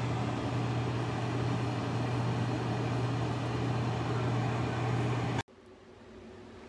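Ninja Max XL air fryer running mid-cook: a steady rush of its fan with a low motor hum. It cuts off abruptly about five seconds in to quieter room sound.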